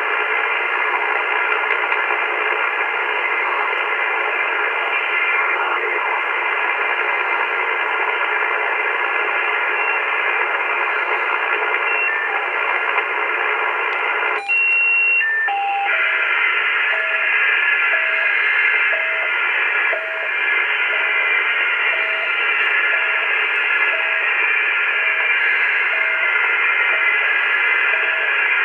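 AOR AR8600 communications receiver in upper-sideband mode, tuned near 3.3 MHz on shortwave, putting out steady band-noise hiss laced with faint whistling carrier tones. About halfway through the hiss dips for a moment and a few short tones sound. From then on a short beeping tone repeats about once a second.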